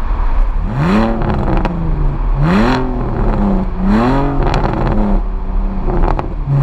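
BMW Z4 E85's 3.0-litre straight-six through a straight-through exhaust with the rear silencer deleted, heard right at the twin tailpipes in a tunnel: it revs up and drops back three times, about a second and a half apart, with a couple of sharp cracks near the end.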